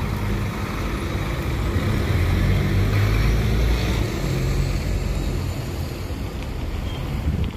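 VDL Citea city bus driving past at close range: the hum of its drivetrain over tyre noise on the wet road, loudest about halfway through.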